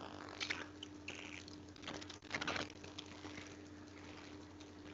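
Faint room noise through a meeting microphone: a steady low hum, with two short rustling or clicking sounds about half a second and about two and a half seconds in.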